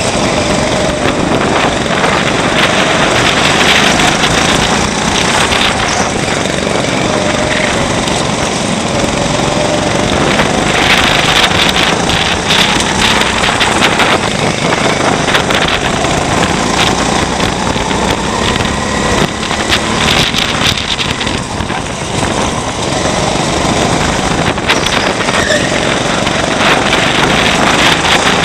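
Onboard sound of a 200cc Honda rental kart at race pace: its single-cylinder four-stroke engine revving up and down through the corners, loud and rasping under a heavy rushing noise.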